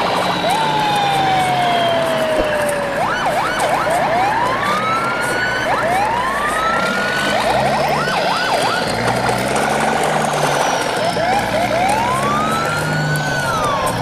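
Siren-like sliding whistle tones laid over the picture. There is one long slow fall, then a flurry of quick up-and-down sweeps and several rising whoops, over a steady noisy bed with a low hum.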